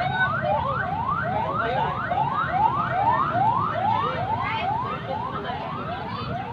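An electronic siren or alarm sounding a fast repeating rising whoop, about two and a half sweeps a second, over a low background rumble.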